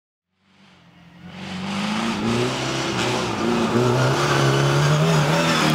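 Rally car engine running hard at speed, with road noise, fading in over the first couple of seconds and cutting off abruptly near the end.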